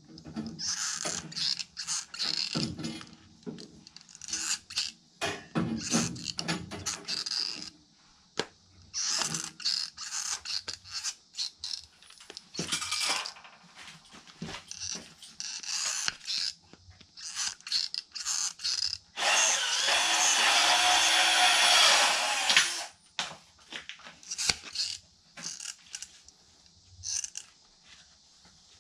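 A black plastic furnace part being handled and worked with tin snips: scattered clicks and scrapes that stop and start. A little past the middle, a loud steady noise lasts about three and a half seconds.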